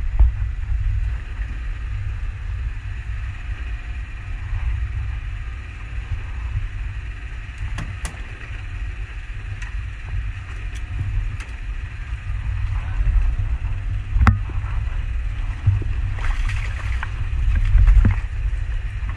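Steady low rumble of an engine on an outrigger fishing boat, with a few sharp knocks. Near the end comes a short burst of splashing as a hooked skipjack tuna is pulled from the water onto the boat.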